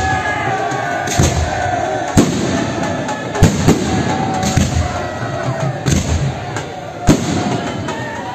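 Aerial firework shells bursting overhead, a sharp bang roughly every second, about seven in all, over a continuous crackle and rumble.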